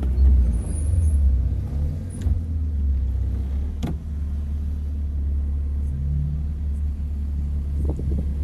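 BMW E36 engine running at low speed, heard from inside the cabin as a steady low drone while the car rolls slowly. One sharp click comes about four seconds in.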